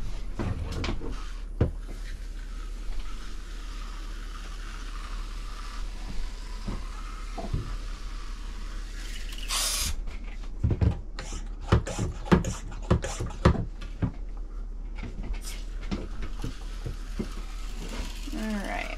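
A scatter of light clicks and knocks from objects being handled, thickest in the second half. A short hiss comes about halfway through.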